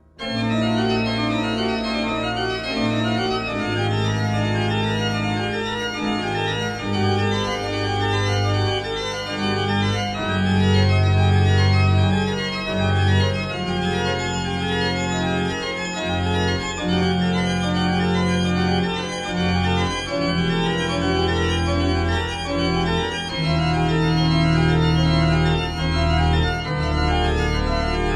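Organ-style keyboard music playing held chords over a bass line, the chords changing every second or two; it starts abruptly at the beginning.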